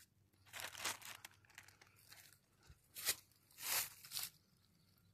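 Rustling and crunching in dry leaf litter and forest undergrowth, as from steps through the woodland floor: several short, irregular bursts, fairly faint.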